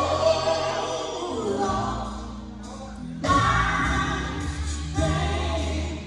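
Live gospel music: several voices singing held, wavering notes together over a band with a low bass line. The singing drops back about two seconds in and swells again a second later.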